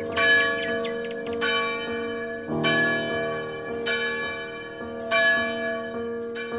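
Church bells tolling: about five heavy strokes, one every second and a quarter or so, each ringing on and overlapping the next.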